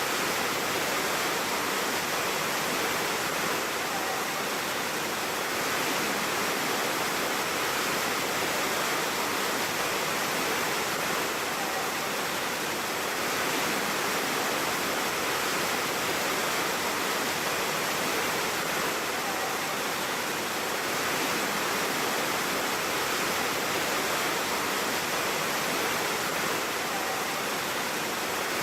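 A waterfall's water falling and rushing in a steady, even hiss with no breaks, easing slightly in loudness every seven or eight seconds.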